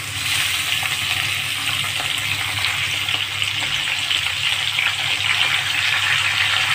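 Raw chicken pieces going into hot oil in an iron wok, setting off a sizzle that starts all at once and then holds steady.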